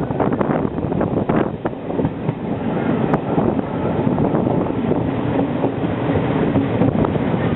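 Diesel multiple unit train running along the track, heard from on board: a steady rumble with a few sharp wheel clicks over rail joints in the first seconds and one more about three seconds in.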